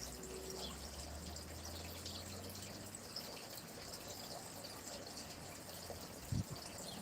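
A stream of running water flowing steadily, with a low hum in the first few seconds and a short low thump near the end.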